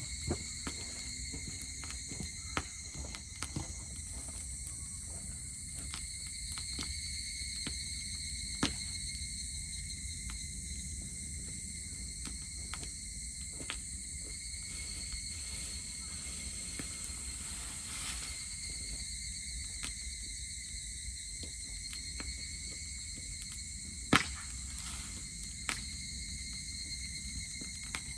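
A steady chorus of insects trills throughout, a few continuous high tones layered together. Over it come scattered sharp crackles and pops from a dry-grass campfire, the loudest pop about three-quarters of the way through.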